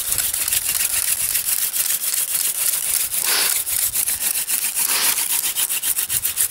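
Friction-fire drill: a wooden spindle turned by a cord grinds rapidly in a wooden hearth board, making a fast, dry, rhythmic scraping squeak that quickens toward the end. Two brief, fuller rasps come about three and five seconds in. It has not yet made a coal.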